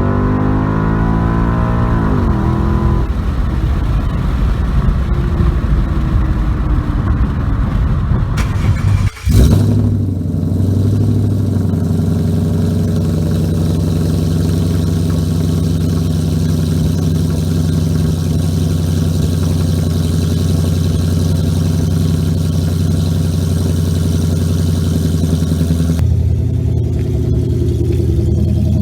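Mufflers-removed exhaust of a 5.0 Coyote V8 Mustang. The engine pitch glides up and down over the first few seconds, drops out briefly a little after nine seconds, then holds steady and shifts tone near the end.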